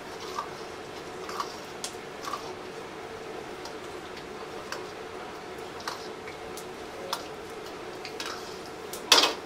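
Metal ladle clicking and scraping against a wok as meat is stir-fried over a gas burner, over a steady hum. A louder, brief clatter about nine seconds in.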